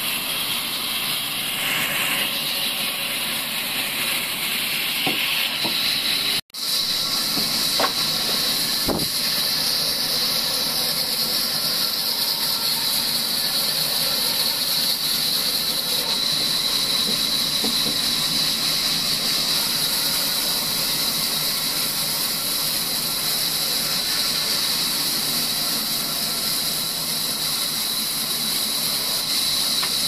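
Large sawmill band saw ripping a timber beam lengthwise: a steady hissing rasp of the blade through the wood with a high, even whine over it. The sound drops out for an instant about six seconds in.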